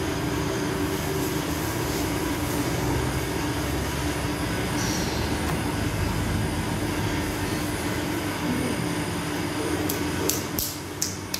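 A revolving gas-fired bread oven running, its burner and turning drive giving a steady rushing noise with a constant low hum. A few sharp clicks come near the end.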